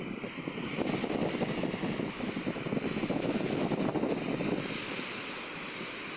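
Strong wind buffeting the microphone in gusts, over surf washing on the beach; the buffeting eases a little near the end.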